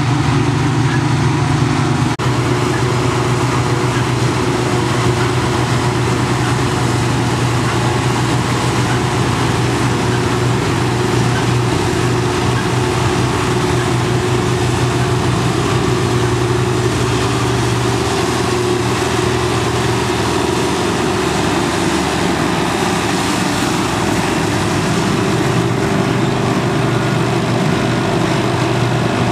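New Holland FX450 self-propelled forage harvester and the New Holland tractor hauling the silage trailer alongside, their engines running steadily under load as the harvester chops wholecrop, a loud continuous drone with a brief break about two seconds in.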